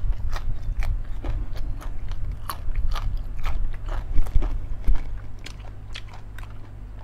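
Close-up chewing of a mouthful of raw yardlong bean: many irregular crisp crunches, several a second, thinning out after about five seconds.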